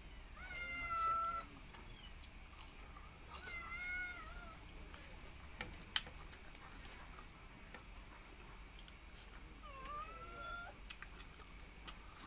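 A cat meowing three times, each call about a second long: once near the start, once about three and a half seconds in, and once near the end. A few sharp clicks fall between the calls, the loudest about six seconds in.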